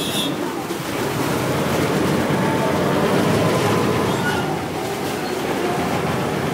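River ferry's engine running under power as the boat pulls away from the pier, a steady rumble that grows louder about a second in.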